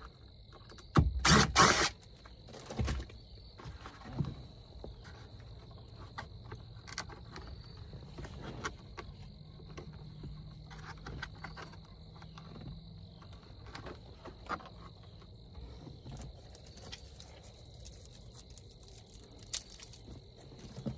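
Crickets trilling steadily in the background, with scattered clicks and knocks of tools and trim being handled, and one short loud noise about a second in.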